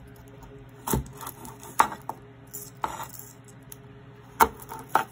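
Chef's knife cutting garlic cloves on a plastic cutting board: about five sharp, unevenly spaced knocks of the blade striking the board.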